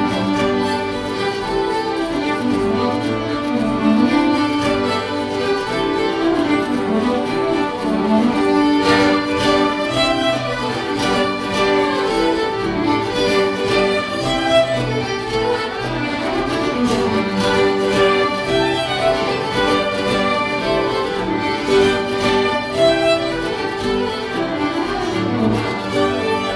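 Two fiddles and an acoustic guitar playing a fiddle tune together: the fiddles bow the melody while the guitar strums along.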